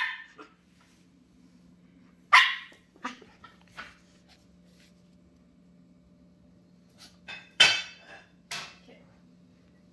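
Shetland Sheepdog puppy barking: short, sharp, high barks, one about two seconds in and two more near the end, with a few smaller yips between.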